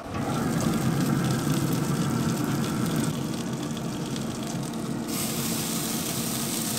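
Steady rushing, hissing noise with a low hum underneath; a higher, brighter hiss joins about five seconds in.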